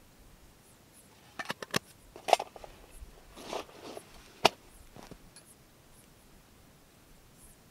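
Hands handling small camp gear: a quick run of sharp clicks, a louder click, a short scraping rustle, then one last sharp click.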